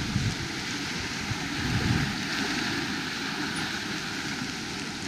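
Wind buffeting the handheld camera's microphone: a steady rush with low, rumbling gusts at the start and again about two seconds in.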